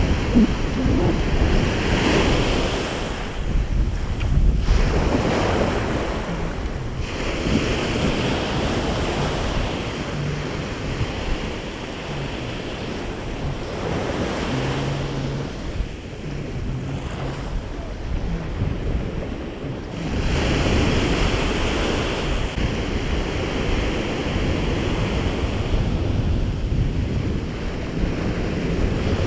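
Small waves breaking and washing up a sandy beach, the rush of water swelling and easing several times, with wind buffeting the microphone.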